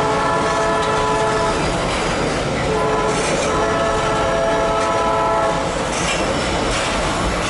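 Empty freight hopper cars rolling past with steady wheel-on-rail noise and clatter, while a train horn sounds a chord of several steady notes in two long blasts: the first ends about a second and a half in, the second runs from about three to five and a half seconds.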